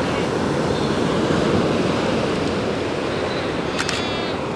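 Atlantic surf breaking on a rocky shore: a steady rush of waves with some wind. Near the end comes one short, high bleat from the Cape fur seal colony.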